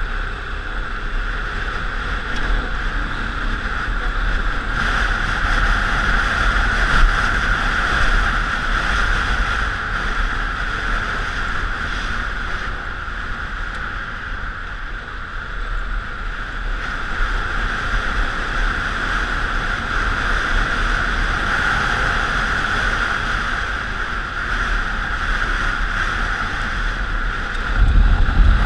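1999 Honda Africa Twin's 750 cc V-twin engine running under way on an off-road ride, with steady wind rush on the microphone; the engine grows louder near the end.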